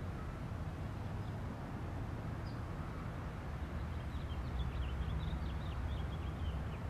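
Quiet outdoor ambience: a steady low rumble, with a run of short, high bird chirps through the second half.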